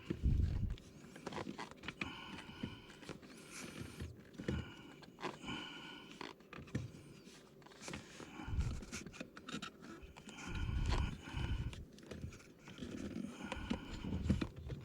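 Rubber edges of a BMW M Performance brake pedal pad being stretched and pulled over a metal pedal plate: repeated short rubber squeaks and creaks, mixed with irregular knocks and a few dull thumps from hands working at the pedal.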